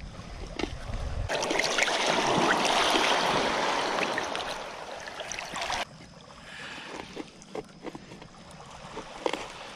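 A rush of water swelling and fading over about four and a half seconds, starting and stopping abruptly. Light clicks and knocks come before and after it.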